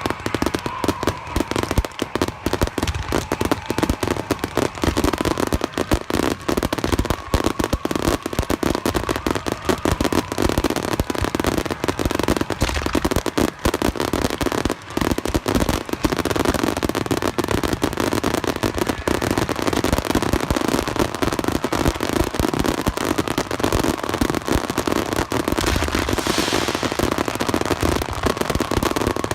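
Fireworks going off at close range: a dense, continuous barrage of crackling bursts with no let-up.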